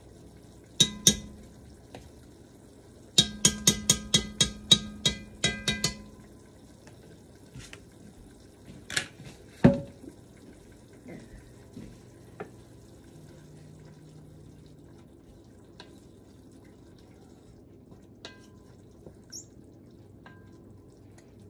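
A spoon tapping against the enameled cast-iron Dutch oven to knock off butter, each tap ringing briefly: two taps, then a quick run of about a dozen. A single louder knock follows near ten seconds, then only a faint clink or two.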